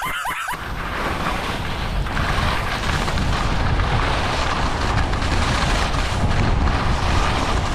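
Loud wind rushing and buffeting over the microphone while skiing downhill, setting in about half a second in and building.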